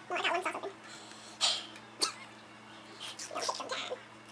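People eating chicken nuggets, making short muffled mouth and voice sounds while chewing. There is a breathy rush about a second and a half in and a light click about two seconds in.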